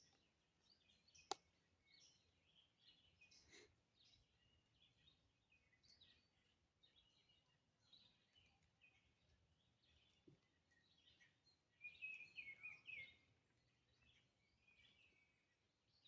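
Quiet woodland with faint, scattered bird chirps, rising to a brief louder run of chirps about twelve seconds in. A single sharp click sounds about a second in.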